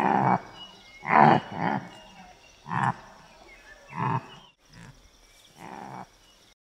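Antelope calling: a series of about six short, hoarse calls, roughly one a second, the later ones fainter.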